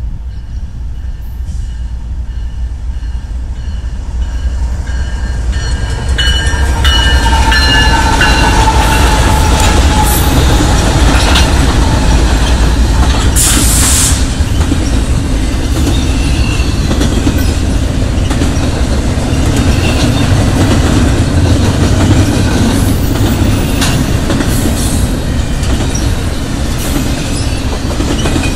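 Diesel freight train approaching and passing: the rumble of its locomotives builds over the first few seconds, then double-stack intermodal container cars roll by with a steady loud rumble and wheel clatter on the rails. A brief sharp hiss cuts in about halfway through.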